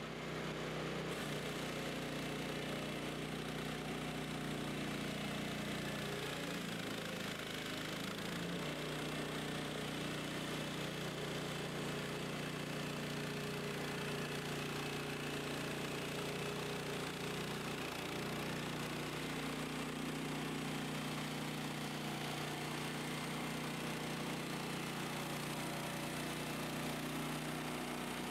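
Chainsaw running steadily at high revs under load as it rip-cuts a log lengthwise in a chainsaw mill, its pitch wavering briefly a couple of times.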